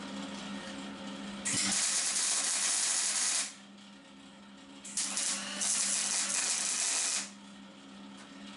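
Gas-shielded MIG welding arc sizzling in two runs of about two seconds each, with a short pause between them. A steady low hum runs underneath throughout.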